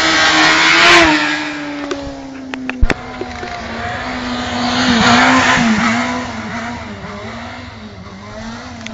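A motor vehicle doing a burnout: the engine is held at steady high revs while the spinning tyre squeals, the squeal swelling loudest about a second in and again around five seconds. There is a single sharp bang a little before three seconds.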